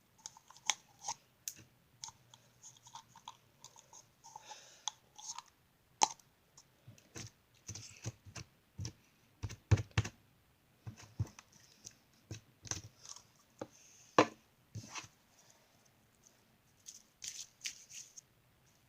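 Soft, gushy slime being squeezed and stretched by hand, giving irregular wet clicks, pops and squelches with short quiet gaps between them.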